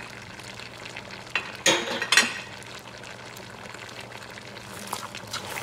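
Goat curry simmering and sizzling in a pot on the stove, over a steady low hum, with a few sharp knocks in the pot between one and two seconds in.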